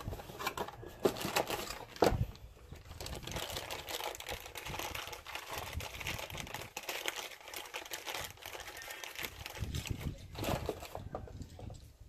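Packaging of a new ignition coil pack crinkling and rustling as it is unboxed, a cardboard box and its wrapping handled, with many small irregular clicks and crackles.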